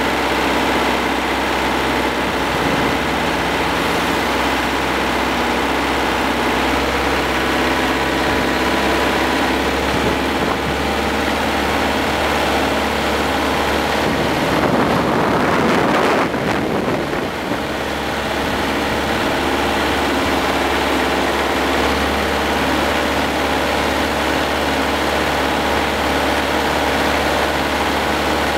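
Hürlimann D70 tractor's diesel engine running steadily as the tractor drives along. About halfway through, a brief rush of noise swells and fades, and the engine sound dips for a moment.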